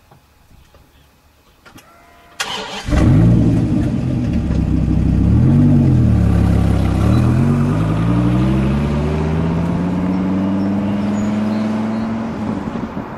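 Dodge Viper's V10 engine starting with a sudden catch about two and a half seconds in, blipped up and back down once, then pulling away with a long steady rise in pitch as it accelerates.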